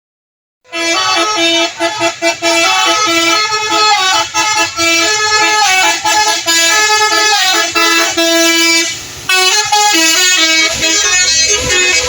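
Bus 'telolet' horn playing a tune: several horn trumpets sounding together in quickly changing notes with short breaks, starting a moment in after a brief silence.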